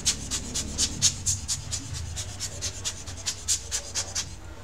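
Rubber hand air blower squeezed rapidly over an opened laptop's fans and heatsink, giving short sharp puffs of air at about five a second, stopping shortly before the end.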